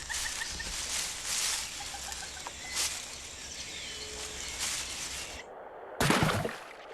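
Rainforest background sound with repeated hissy rustling swells, then a sudden loud crash of noise about six seconds in.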